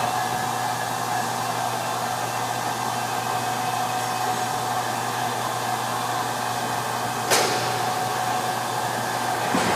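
Steady whirring machine noise with a thin steady whine running through it, and one sharp metallic click about seven seconds in.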